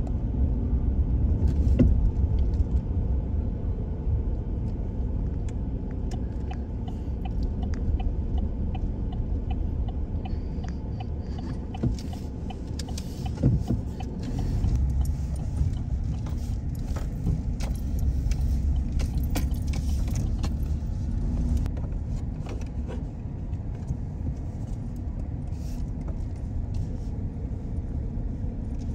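Car driving, heard from inside the cabin: a steady low road and engine rumble. From about halfway through, light metallic jingling and clicking rattles join it.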